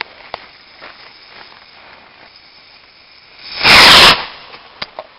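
A lit fuse fizzes faintly for about three and a half seconds, then the small rocket's motor ignites with a very loud rushing blast lasting under a second as it lifts off.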